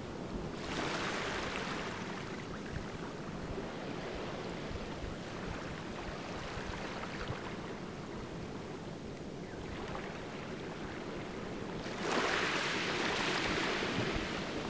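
Small waves washing onto a sand and pebble shore, a steady wash of surf that swells louder about twelve seconds in.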